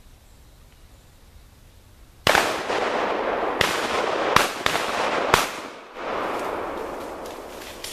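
Several shotgun shots about a second apart, fired at ducks, over a loud rushing noise that starts suddenly and fades after the last shot.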